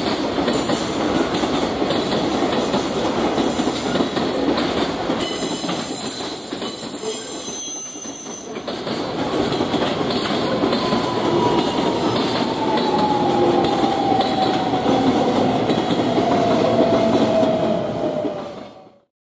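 JR Freight container train's flat wagons rolling past with steady wheel-on-rail rumble, joined in the second half by a whine that slowly falls in pitch. The sound fades out quickly near the end.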